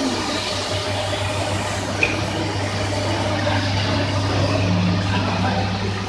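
Automatic carpet washing machine running, with a steady motor hum and water spraying onto the carpet; a single short click about two seconds in.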